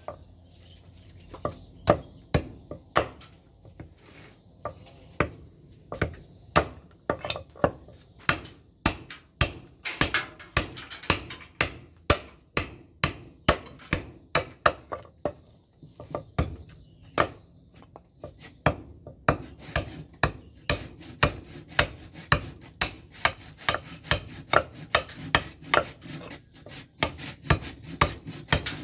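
Hand file stroked repeatedly along the edge of a steel golok blade, each stroke a short rasping scrape, about two strokes a second and speeding up in the second half.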